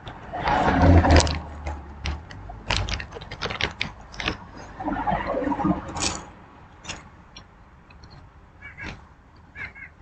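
Close-up crunching and chewing of candy-coated popcorn: irregular crackles and clicks, heaviest about a second in and again around five seconds.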